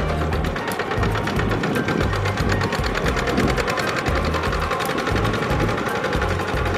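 Kubota hand tractor's single-cylinder diesel engine running steadily under load with a fast, even clatter as its cage wheels work a flooded rice paddy.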